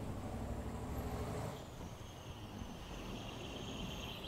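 Outdoor background noise: a low rumble that eases off about one and a half seconds in, followed by a steady high-pitched drone.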